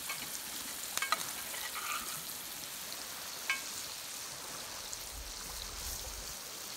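Fish frying in oil in a pan over a campfire, a steady sizzle, with a few sharp clicks about one second in and again a little past the middle.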